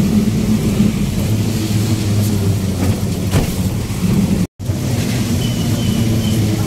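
Auto-rickshaw engine running steadily as it drives on a wet road, heard from inside the open passenger cab, over a steady hiss. The sound cuts out for a moment a little past halfway.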